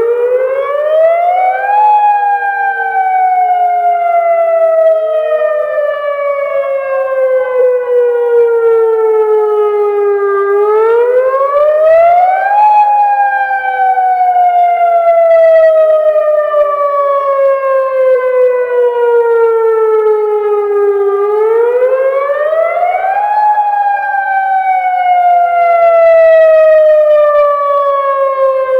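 Federal Signal Modulator 6048 outdoor warning siren sounding a wail, the Attack signal. Its loud tone rises quickly for about two seconds, then slides slowly down for about eight, repeating about every ten and a half seconds.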